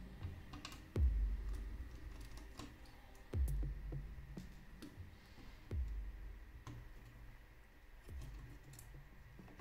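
Electronic background music with a deep bass hit about every two and a half seconds, over small scattered clicks and taps of hands and a screwdriver working on a laptop's internal parts.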